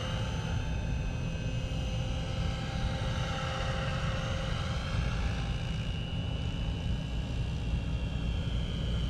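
Radio-controlled T-Rex 700 helicopter flying at a distance: a faint steady whine from its motor and rotor over a steady low rumble.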